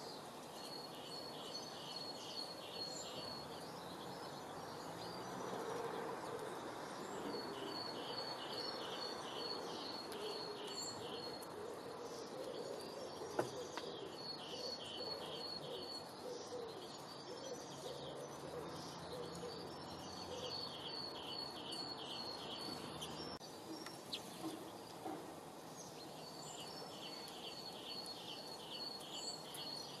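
A small bird sings a high, rapid trill of evenly spaced chirps in bouts of two to four seconds, repeated about every five or six seconds over a steady outdoor background hiss. Softer low calls come in between, and there is a single sharp click about halfway through.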